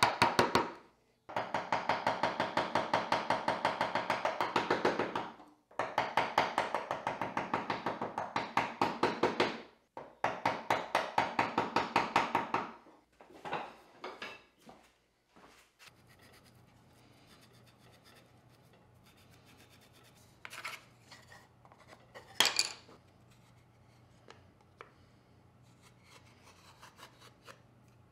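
Hand file rasping across the teeth of a frame saw blade clamped in a vise: quick, even strokes, several a second, in three runs of about four seconds each, then a few scattered strokes. After that it goes quiet apart from a faint hum and two short knocks.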